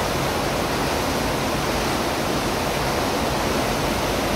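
Steady, even rushing noise with no breaks or changes.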